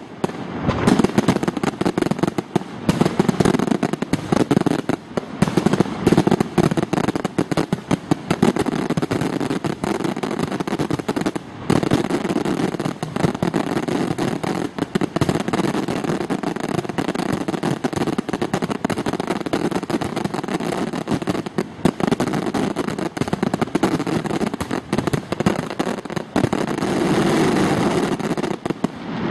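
Fireworks display: aerial shells bursting in a dense, unbroken barrage of rapid bangs and crackle.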